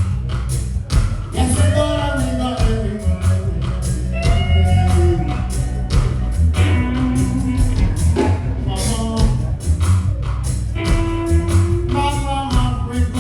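Live reggae band playing a song with a sung lead vocal over prominent bass and an even drum beat.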